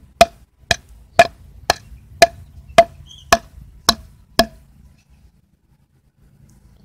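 Homemade hatchet, made from a piece of pipe with a metal weight for a head, chopping into a wooden board: nine sharp strikes about two a second, each with a short ring. The chopping stops about four and a half seconds in.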